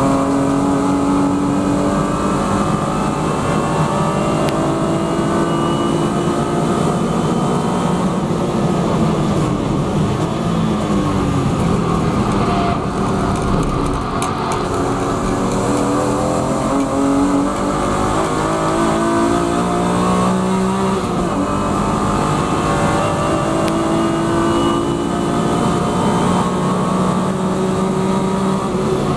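BMW E36 M3 Evo race car's 3.2-litre straight-six under full race load, heard from inside the cabin. The revs climb repeatedly and drop at each gear change, ease off briefly under braking for a corner about halfway through, then pull hard again.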